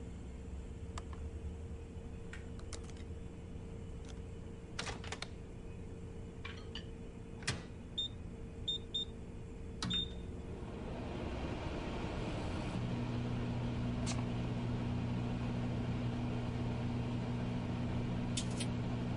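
Microwave oven being set and started: a few clicks, then several short high beeps from the keypad, then the oven begins running with a steady hum and fan noise that holds to the end.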